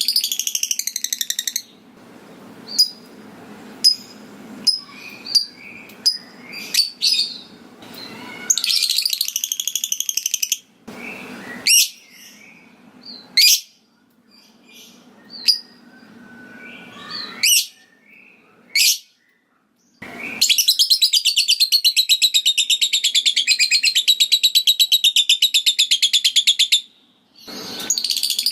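Lovebird calling: a string of short, sharp, separate chirps and brief chattering bouts, then about twenty seconds in a long, fast, evenly rattling trill (the 'ngekek') that lasts some six seconds.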